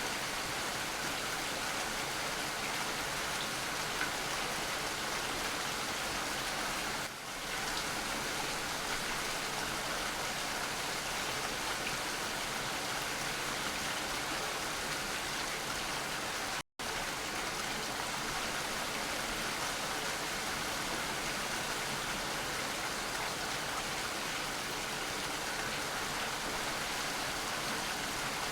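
Steady rain, an even hiss of falling drops, with a short dip about seven seconds in and a split-second dropout to silence a little past halfway.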